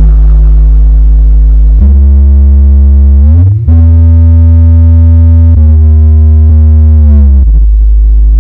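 Bass-test track played very loud through Bassmaxx subwoofers: long, deep synth bass notes that change pitch every couple of seconds, with a quick upward slide about three and a half seconds in.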